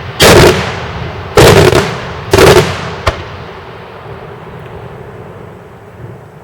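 Daytime firework shells bursting overhead: three heavy bangs in quick succession about a second apart, a sharper single crack about three seconds in, then the echo dying away before another bang right at the end.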